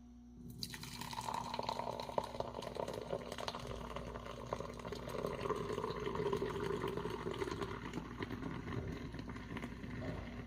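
Carbonated water being poured from a can, the liquid splashing and fizzing with many fine bubble crackles. It starts about half a second in and eases off near the end.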